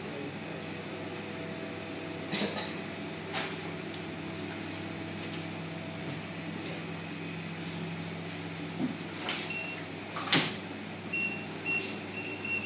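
Steady machine hum with a few sharp clicks and knocks; about eleven seconds in, a string of short electronic beeps as the keys of a card payment terminal are pressed.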